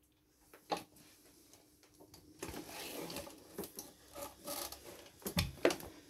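Handling noise around a Royal upright vacuum cleaner that is switched off: a click, then a few seconds of uneven rubbing and rustling, and two knocks near the end.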